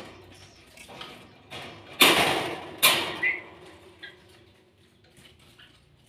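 Red wire bird cage being handled as a lovebird is put back inside: two loud rattling scrapes about two and three seconds in, then a few light clicks.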